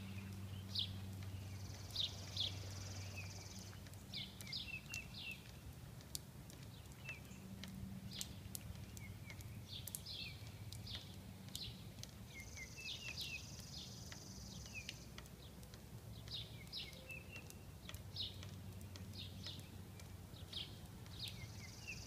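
Songbirds chirping with many short, sharp calls. A high buzzy trill lasting two or three seconds comes three times: about a second in, around the middle and near the end. A faint low hum runs underneath.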